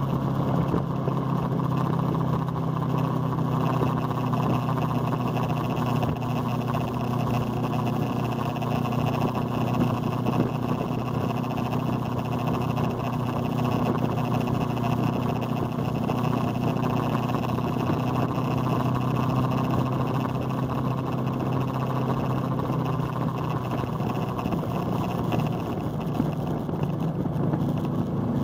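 Motorcycle engine running at a steady cruising speed, heard from on the bike with wind and road noise. The engine note eases and shifts a little near the end.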